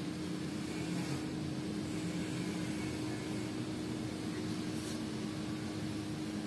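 A steady hum and hiss with one constant low tone, from a running fan or appliance.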